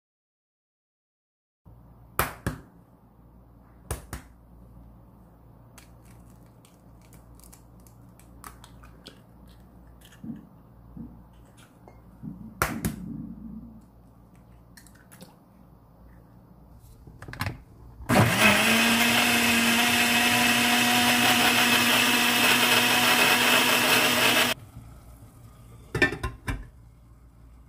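Hand (immersion) blender mixing crepe batter of flour, eggs, melted butter and salt in a tall plastic jar. It runs for about six seconds, its pitch rising quickly as it starts, then it holds a steady drone and cuts off abruptly. Before it there are a few sharp knocks, and near the end two more.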